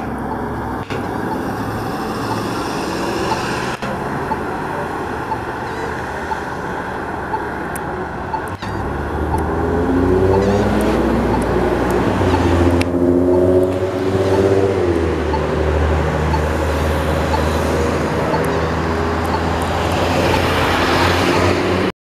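Heavy emergency vehicle engine running with road traffic noise. About nine seconds in it grows louder, its pitch rising and falling as it revs and pulls away. The sound cuts off suddenly near the end.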